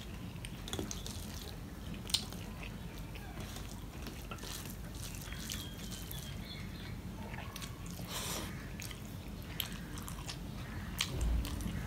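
Chewing and wet mouth smacks of a man eating rice and curry by hand, with soft squelches of fingers kneading rice against a steel plate. Scattered small clicks over a steady low hum, one sharper tick about two seconds in.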